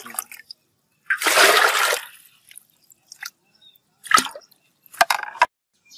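Water poured from a plastic scoop into a metal pot, one splashing pour about a second in, then two shorter, sharper splashes and knocks as the scoop dips back into the water in the pot.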